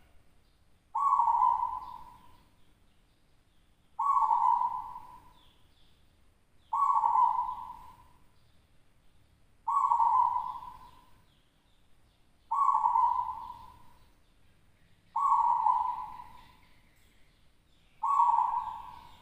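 Local-bred zebra dove (perkutut) singing in its cage: seven cooing phrases, each starting sharply and fading over about a second, repeated roughly every three seconds.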